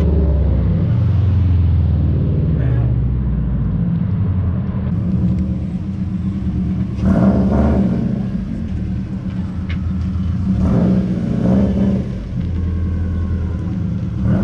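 A car engine running close by at low revs with a steady low rumble, swelling briefly about seven seconds in.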